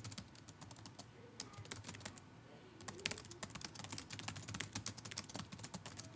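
Computer keyboard keys clicking as a sentence is typed, in quick irregular runs with a short pause a little after two seconds in.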